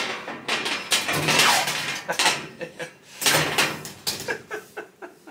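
Metal clattering, scraping and clicking as a flat-pack cabinet's back panel is worked into its metal frame and fastened with the small tool supplied in the kit. The noise comes in bunches, busiest in the first two seconds, with scattered sharp clicks after that.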